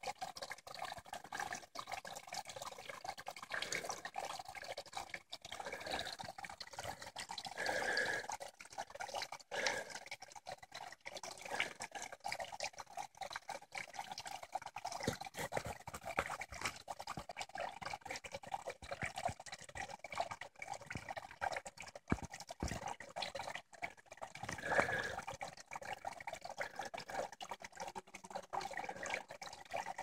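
Small mossy-rock waterfall: a thin trickle of water dripping and splashing into a shallow pool, a steady patter of many small drops.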